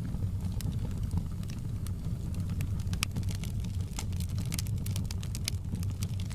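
Fireplace wood fire crackling: many sharp pops and snaps, thickest about two-thirds of the way through, over a steady low rumble of the flames.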